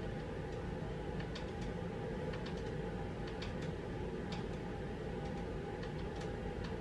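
Steady low background hum with faint clicks at irregular intervals.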